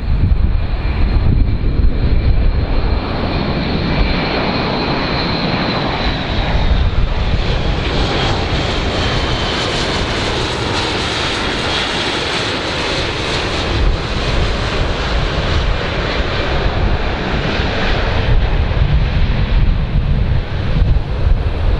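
Airbus A400M's four TP400 turboprop engines as the aircraft flies low past: a steady heavy drone with a high whine that falls slightly in pitch, brightest around the middle. Wind rumbles on the microphone at the start and near the end.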